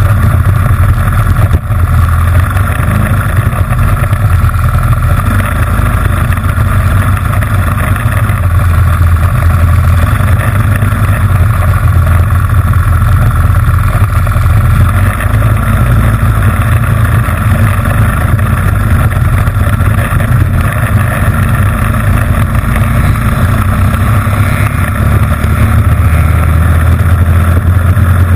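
Honda GX160 single-cylinder four-stroke kart engine running hard at racing speed, heard loud and close from on board the kart. The engine note holds steady with little rise or fall in pitch.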